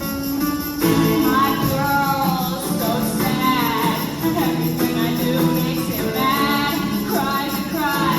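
A woman singing over a strummed guitar; the guitar plays alone at first and the voice comes in about a second in.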